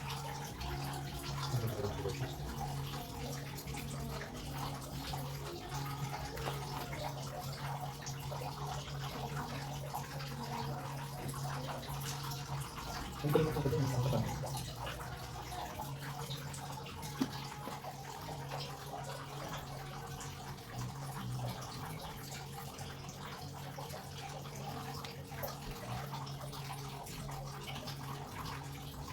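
Water running steadily from a pipe during a faucet installation, over a steady low hum. A brief voice-like sound comes about 13 seconds in.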